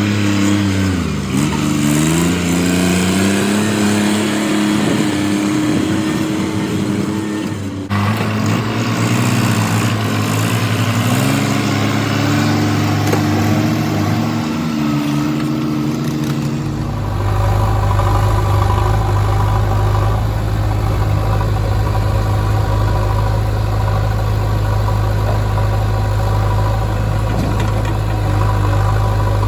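Heavy-equipment diesel engine at work loading mud, its pitch dipping and rising as the load comes and goes. It changes abruptly just past halfway and then runs at a steady, deeper pitch.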